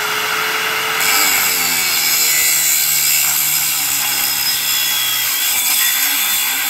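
A handheld power tool running under load: it starts abruptly with a whine that climbs in pitch, then the whine slowly sinks as it works, under a loud hissing grind, and it stops shortly before the end.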